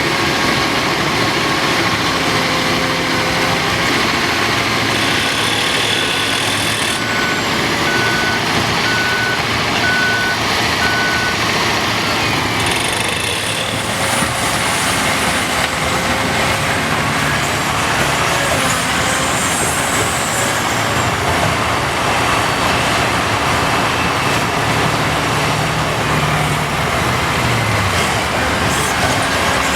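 Large diesel engines of a Caterpillar 5130B excavator and 777 haul truck running steadily, with a reversing alarm giving a series of evenly spaced beeps for several seconds in the first half as a truck backs up.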